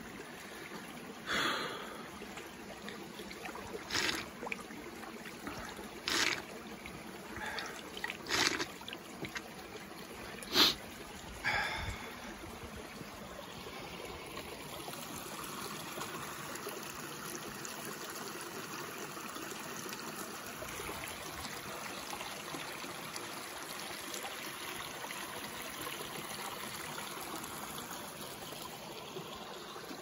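Shallow forest stream trickling over rocks, a steady gentle rush of water that grows fuller after about twelve seconds. In the first twelve seconds about seven short, sharp noises break in over it, the loudest about ten seconds in.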